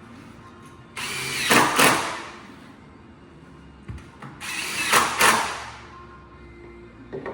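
Power drill driving screws into wood, two short runs about three and a half seconds apart.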